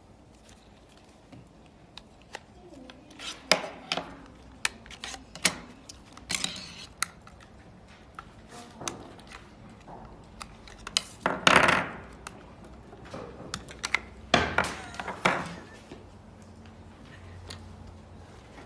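Small hard objects being handled: scattered sharp clicks and knocks, with two longer, noisier handling sounds about eleven and fourteen seconds in.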